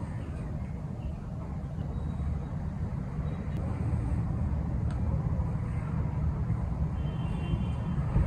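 Steady low rumble of vehicle noise, with a couple of faint ticks.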